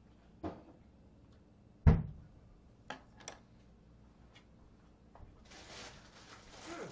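Scattered knocks and thumps of people moving about a small room, with one heavy thump about two seconds in. A rustling noise follows near the end.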